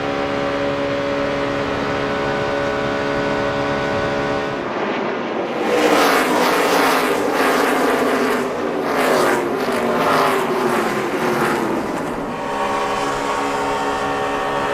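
NASCAR Cup stock cars' V8 engines running at race speed: a steady engine drone, then from about five seconds in several cars rush past with falling pitch, before the steady drone returns near the end.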